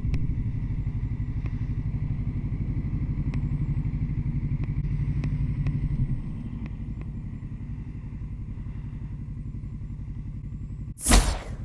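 Motorcycle engine running steadily while riding, its note easing off about six seconds in as the throttle comes off. Near the end a brief loud rush of noise cuts across it.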